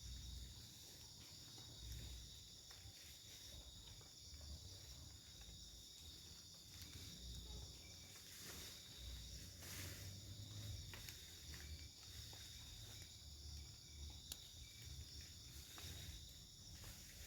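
Faint, steady chirring of night insects such as crickets, over a low rumble with a few soft clicks.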